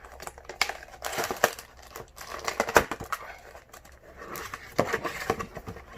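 Cardboard booster box and foil-wrapped booster packs being handled: crinkling and rustling with irregular light knocks and clicks.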